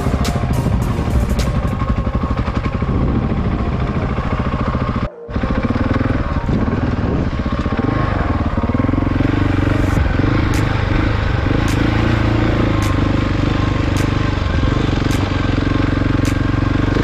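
KTM motorcycle engine running under changing throttle, its pitch rising and falling, with a brief break in the sound about five seconds in.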